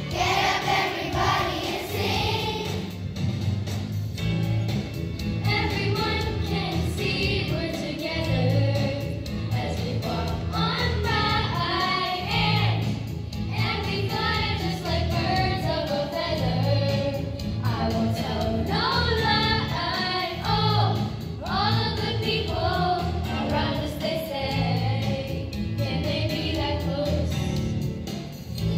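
Children's choir singing with an accompaniment that keeps a steady beat.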